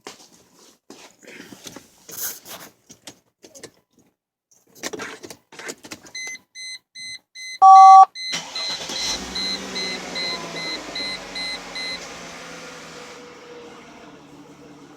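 Clicks and knocks, then a car's warning chime beeping about twice a second and a brief loud tone, after which the Mercedes W210's M112 V6 engine starts with fresh oil and runs, settling toward idle.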